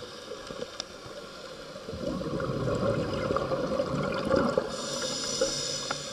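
Scuba regulator breathing heard underwater: a bubbly burble of exhaled air from about two seconds in, then the hiss of an inhalation through the regulator near the end.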